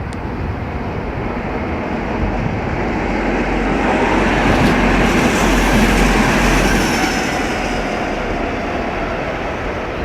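Tram running on rails: a steady rumble of wheels and running gear that swells to its loudest in the middle, with a faint high wheel hiss at the peak, then eases off.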